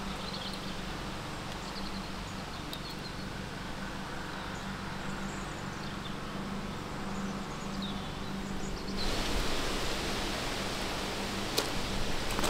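Steady outdoor ambient hiss with a few faint high chirps or ticks. About nine seconds in, it jumps abruptly to a louder, brighter hiss, and a couple of sharp clicks follow near the end.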